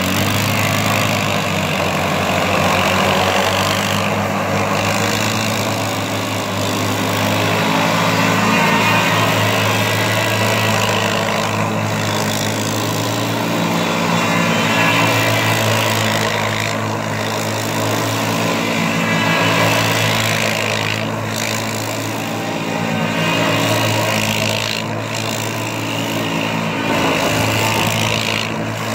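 Two ATV engines running, their revs swelling and easing every few seconds as the quads spin circles on an icy lot.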